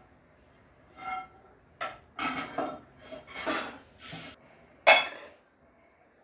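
Glass kitchenware clattering as a glass bowl and its glass lid are handled and set down. There is a ringing clink about a second in, a run of scraping clatters, and a louder ringing clink about five seconds in.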